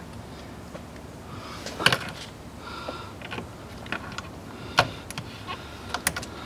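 Pliers working the hose clamps and hoses on a plastic coolant degas bottle: a scatter of sharp metallic clicks and small clatters, the loudest about two seconds in and again near the end.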